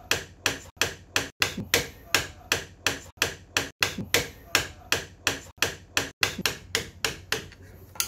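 Hammer tapping a flat-blade screwdriver against the slotted steering stem nut of a Hyosung Mirage 250 motorcycle: a steady run of light metal taps, about two to three a second, stopping near the end. The taps turn the nut back a little to free it, because it was seized tight and was making the steering notchy and the handlebar shake.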